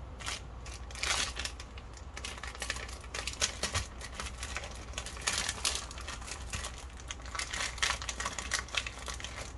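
Beef steak sizzling in oil on a hot grill pan, an uneven crackle of small pops and spits with a fine hiss.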